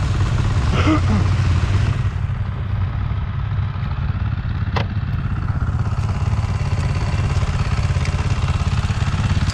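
Motorcycle engine idling with a steady, rapid low pulse, and a single sharp click about halfway through.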